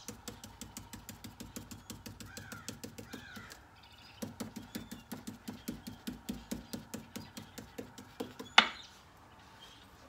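Stiff-bristled stencil brush pounced rapidly on a stencil over a table top, a dry tapping about five or six times a second, with a short pause around four seconds in. A single sharp click near the end.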